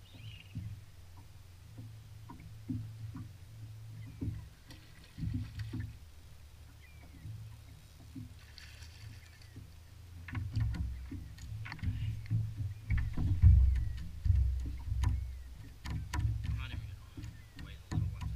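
Low rumble of wind and water against a bass boat's hull, joined about ten seconds in by louder knocks, clicks and splashing as a hooked smallmouth bass jumps beside the boat and is landed.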